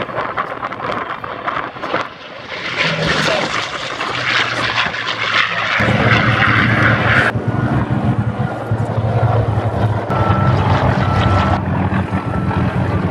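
F/A-18 Hornet twin-jet engines roaring on the takeoff roll, building up over the first few seconds. About six seconds in, the sound gives way to the steady low drone of a piston-engine propeller warplane flying past, with a repeating beep in the last few seconds.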